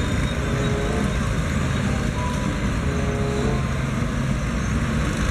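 Heavy earth-moving machine's engine running steadily with a deep rumble, dubbed in as a sound effect for a toy digger.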